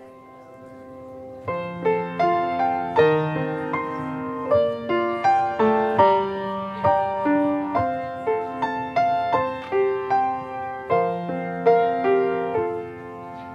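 Piano playing a slow piece. After a soft start, struck notes and chords begin about a second and a half in, each one fading after it is played.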